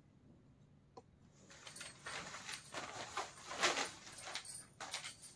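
Crisp Kota cotton saree being handled and spread out over a table, rustling and crackling unevenly from about a second and a half in, after a single light click.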